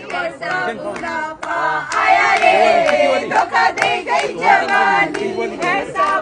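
A group of women singing and shouting together, with hand claps throughout.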